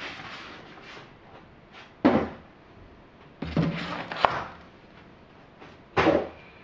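Styrofoam packing pieces being pulled and scraped out of a cardboard box against plastic wrap: three short bursts of scraping and rustling, about two seconds apart.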